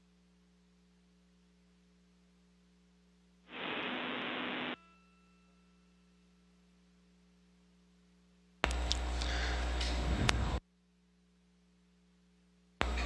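Steady low electrical hum on the broadcast audio, broken by three sudden bursts of static, each one to two seconds long, that switch on and off abruptly like an open radio channel.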